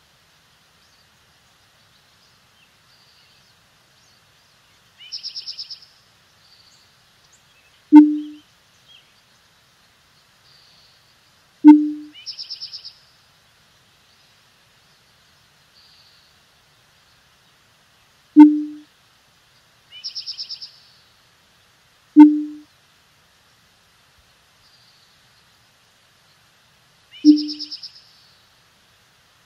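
Five loud, deep thuds, each starting with a sharp click and dying away quickly, a few seconds apart. Between them come four short, high bird-like chirping trills, with silence between the sounds.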